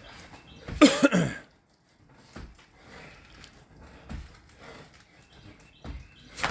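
A man coughs once, loud and hoarse, about a second in, during a hard effort on the pull-up bar. Faint low knocks follow, about every two seconds.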